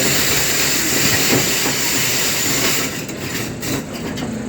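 Volvo excavator working, its diesel engine running with a loud steady hiss over it that cuts off about three seconds in, leaving the engine rumble.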